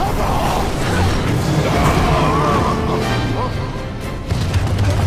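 Action-scene soundtrack: music mixed with crashing, clanking mechanical effects over a heavy low rumble.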